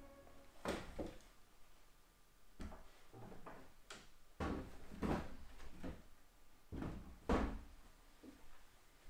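A wooden door being manoeuvred and laid flat on supports: a series of separate wooden knocks and bumps, the loudest about seven seconds in.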